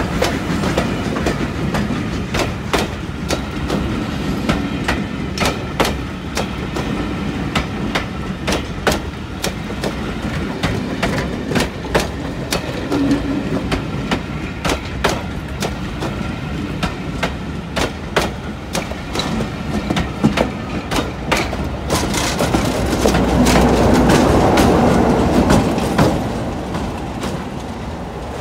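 A train of passenger coaches rolling past close by, its wheels clicking over the rail joints in a rapid clickety-clack over a steady rumble. Near the end the clicking stops and a louder rumble swells and then fades.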